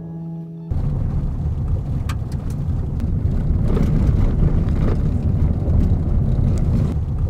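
A car driving on a gravel road, heard from inside the cabin: a steady low rumble of tyres and engine, with a few sharp clicks. It cuts in under a second in, replacing the fading tail of acoustic guitar music.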